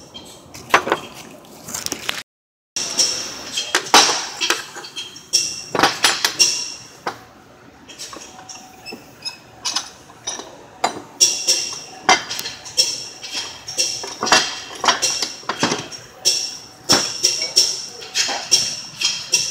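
Hand tools and steel suspension parts clinking and knocking in a long series of short metallic strikes, each with a brief high ring.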